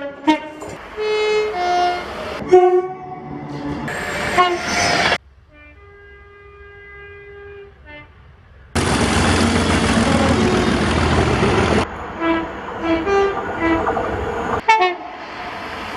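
Train horns from several different trains, spliced one after another: a run of short blasts and toots, each a chord of steady tones. About five seconds in, a quieter single horn note is held for about three seconds. Then a loud rush of noise lasts about three seconds, and short horn toots follow.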